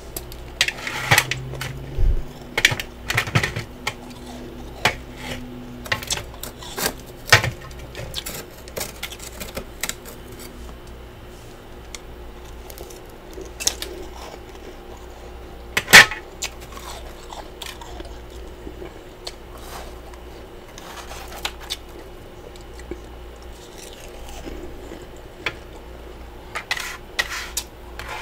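Freezer frost being bitten and chewed: crisp crunches in quick clusters for the first ten seconds, then more scattered, with one sharp loud crunch about halfway and another burst of crunching near the end.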